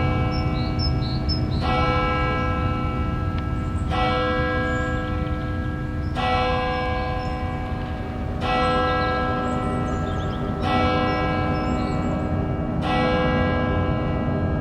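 A single church bell tolling slowly, one stroke a little over every two seconds, each stroke ringing on and fading before the next. A low steady rumble lies beneath it.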